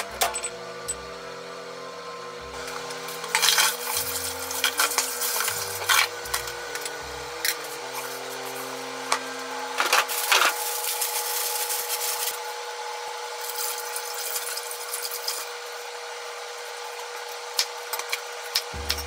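Kitchen handling noises: knocks and rubbing as a dish goes into the oven, with a longer stretch of clatter about ten seconds in, over a steady faint hum. Near the end, a few quick taps of a knife on a wooden cutting board.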